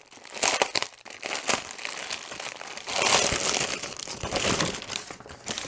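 Thin clear plastic wrap crinkling and rustling as hands open the bag around a rolled bundle of diamond-painting drill packets, busiest about halfway through.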